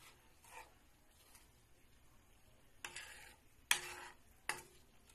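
Spatula stirring sugar in hot cooking oil in a wok, the sugar melting to caramelize, over a faint sizzle. About three seconds in the spatula scrapes and knocks against the pan three times, under a second apart, the middle one loudest.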